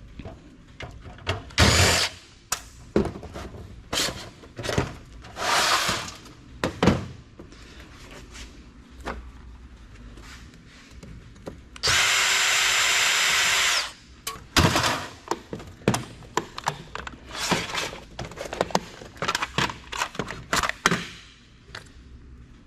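Computer parts being taken apart by hand: repeated metal clanks, knocks and rattles of parts being handled and pried. About halfway through, a power driver runs steadily for about two seconds.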